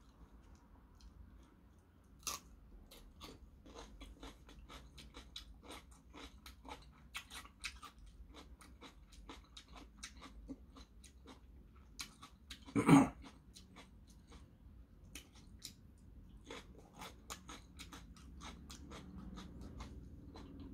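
Close-up crunchy chewing of raw cucumber: irregular crisp crunches, a few a second. One louder brief sound comes about thirteen seconds in.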